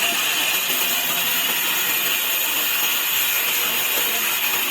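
Sawmill saw cutting wood: a steady, high-pitched hiss with a faint whine, holding at an even level throughout.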